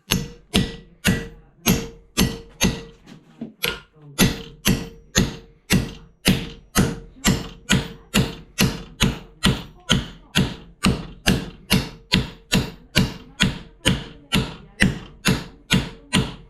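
Hammer blows on a steel plate to bend it, about two a second, each strike leaving a short metallic ring, with a brief pause about three and a half seconds in.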